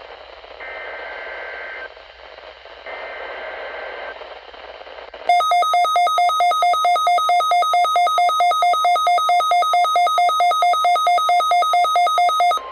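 Weather radio alert signals: two short buzzy SAME data bursts about a second each, then a weather radio receiver's alarm beeping loudly and rapidly, about four beeps a second, for about seven seconds until it cuts off near the end. The data header triggers the receiver's alarm for a newly issued severe thunderstorm watch.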